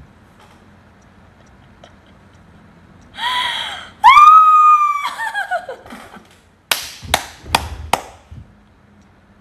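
A young woman's high-pitched squealing laughter: a short squeal, then a long held shriek that falls away at its end, followed by several short sharp bursts of laughter.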